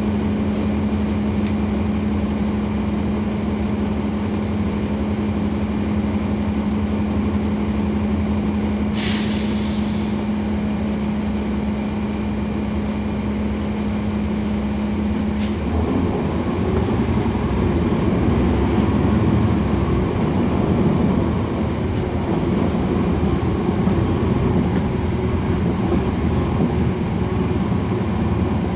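Cummins ISL9 inline-six diesel of a 2011 NABI 40-SFW transit bus, heard from the rear seats. It holds a steady hum, and about nine seconds in comes a short burst of air hiss from the brakes. About halfway through, the steady hum gives way to louder engine noise as the bus pulls off and accelerates.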